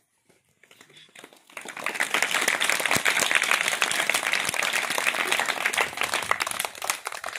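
A crowd of schoolchildren clapping in applause. It builds up about a second in and thins out near the end.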